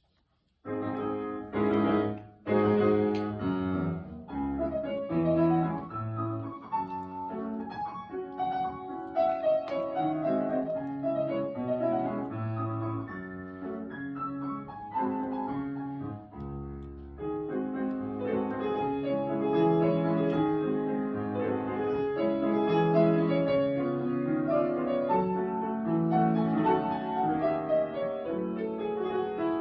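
Solo piano playing a classical piece: it opens with a few loud struck chords, then moves into a flowing melody over chords, thinning briefly about halfway through before carrying on.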